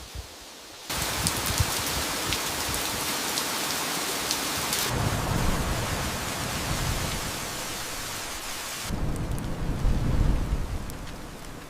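AI-generated wind-in-the-trees sound: a dense hiss with scattered crackles that starts abruptly about a second in. A low rumble joins it about five seconds in, and the hiss cuts off suddenly near nine seconds while the rumble goes on.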